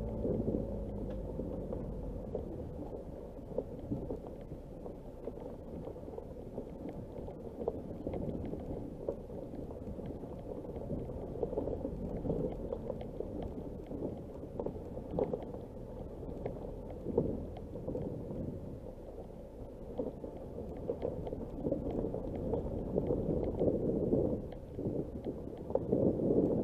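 Nissan Qashqai driving on a rough dirt and stone track: a steady low rumble of tyres and running gear, with scattered knocks and clicks as it goes over stones.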